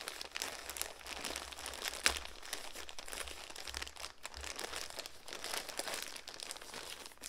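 Plastic poly mailer bag crinkling and rustling as it is pulled and torn open by hand, with a sharp crackle about two seconds in.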